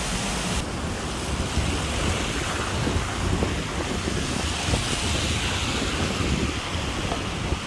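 Muddy runoff water rushing down rocks for the first half-second, then a steady low rumble of a car driving on a wet road, with wind buffeting the microphone.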